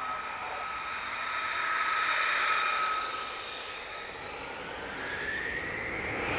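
F-35B Lightning II's jet engine whining, with a steady high whistle that swells about two seconds in. Over the last couple of seconds a tone rises in pitch as the engine builds up.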